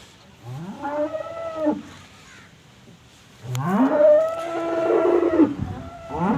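Cows mooing on a dairy farm: a moo of about a second, then a longer drawn-out moo, with another beginning at the very end. Each rises in pitch, holds, then falls away.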